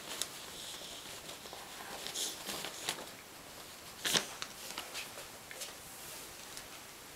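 A 4-month-old Polish Lowland Sheepdog puppy chewing and tugging at a plush dog bed. Soft rustling and scratchy fabric noises come with scattered short clicks, the loudest about four seconds in.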